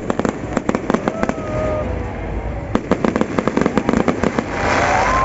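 Fireworks going off: rapid strings of sharp crackling pops in two spells, the second starting a little before the three-second mark, with a few faint whistling glides among them.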